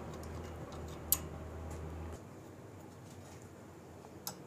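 A few sharp metallic clicks and taps from a spanner and carburetor parts being handled while fitting a motorcycle carburetor, the loudest about a second in and two more near the end. A low hum underneath cuts off about two seconds in.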